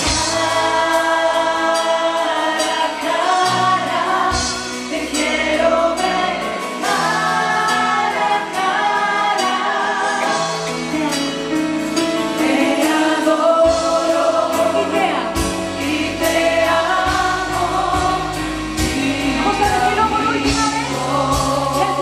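Live Christian worship music: a group of singers sing together into microphones over a band with drums and keyboard, with the drum beat coming through more strongly in the second half.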